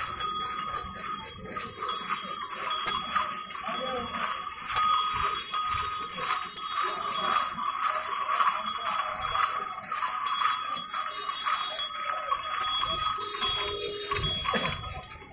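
Small bells jingling continuously as people walk along, with crowd voices under them.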